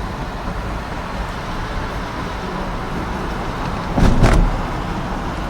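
Steady road and engine noise of a car driving along, with one thump about four seconds in.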